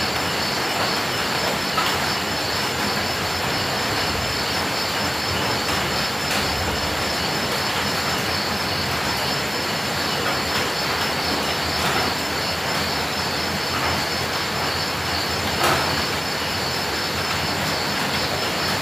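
Steady rain, an even hiss with a steady high-pitched ringing tone running through it and a few sharp taps, the clearest one near the end.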